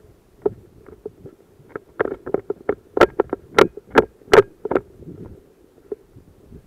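Footsteps of a person moving quickly over dry forest ground and brush, recorded on a body-worn camera, with gear and branches brushing past. The steps come about two a second and are loudest in the middle stretch.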